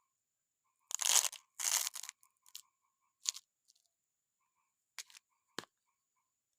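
Candy wrapper being torn open: two loud tearing rasps about a second in, followed by a few short crinkles and clicks.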